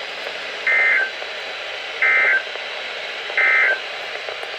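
Three short bursts of warbling digital data tones, the NOAA Weather Radio EAS/SAME end-of-message signal, evenly spaced about 1.4 seconds apart over steady radio hiss. They mark the end of the warning broadcast.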